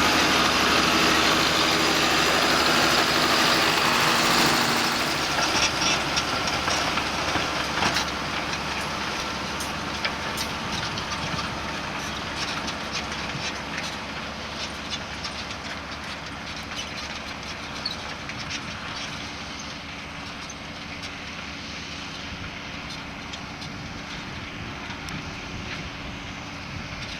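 John Deere 6930 tractor's six-cylinder diesel engine working under load while pulling a four-furrow Kverneland plough. It is loud at first, then fades steadily as it moves away, with scattered sharp clanks.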